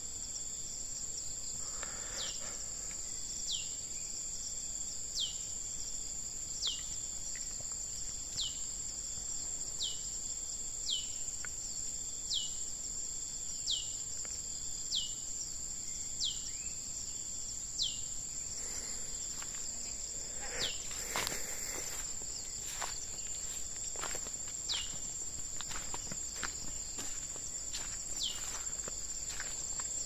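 Forest ambience: a steady high-pitched insect drone, with a bird repeating a single downward-sliding call about every second and a half. Footsteps on a dirt trail come in around two-thirds of the way through.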